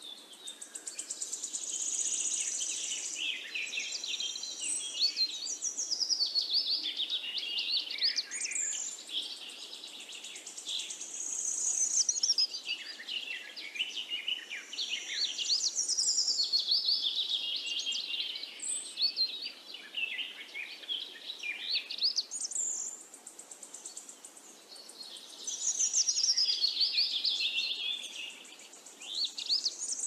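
Small birds chirping and singing in fast, high, rising and falling phrases that swell and fade in waves every few seconds, with a high steady buzzing note now and then.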